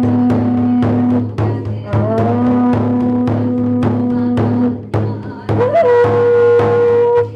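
Drum beaten at a steady pace of about two strokes a second during a goma fire ritual. Over it run long held pitched notes that slide up at their start; a chanting voice or a conch-shell horn, the last note higher.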